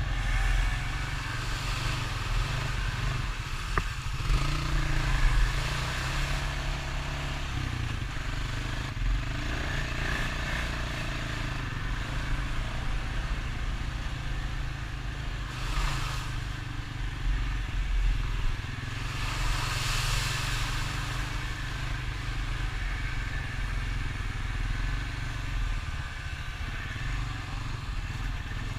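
Honda Rancher ATV engine running as it is ridden, its pitch rising and falling with the throttle, with two brief rushing noises a little past the middle.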